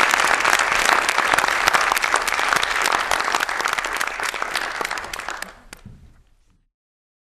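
Audience applauding, a dense patter of many hands that fades away about five to six seconds in.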